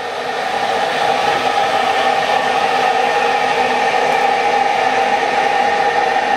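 Steady mechanical running noise heard from inside a local diesel train's driver's cab, with an even hum under a broad rushing noise; it swells up over the first second, then holds level.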